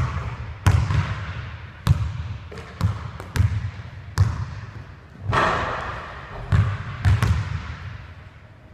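Basketball bouncing on a hardwood gym floor, about a dozen sharp bounces at irregular spacing, each echoing through the large hall. About five seconds in there is a brief rushing noise.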